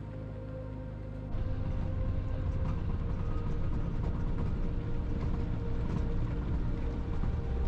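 Land Rover Defender 90 driving over a rough, stony dirt track: a steady low rumble of engine, tyres and suspension with scattered small knocks and rattles. It turns suddenly louder a little over a second in.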